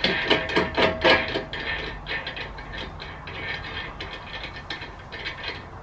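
Metal hardware clicking and clinking against the steel tire-carrier bracket as bolts and nuts are worked by hand: rapid irregular clicks, loudest in the first second and a half, then lighter.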